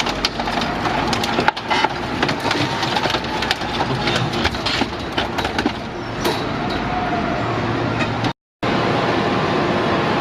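Hydraulic scrap-metal baler shear crushing scrap, with many sharp cracks and crunches of metal giving way over the steady running of the machine. The cracking thins out after about six seconds, leaving the machine's steady running, and the sound drops out briefly about eight seconds in.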